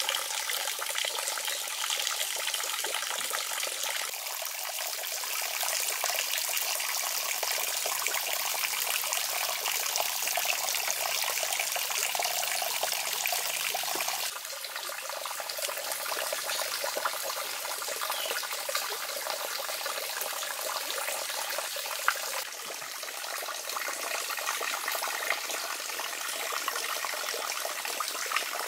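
Steady trickling and splashing of running water into a garden pond, shifting slightly in level a few times.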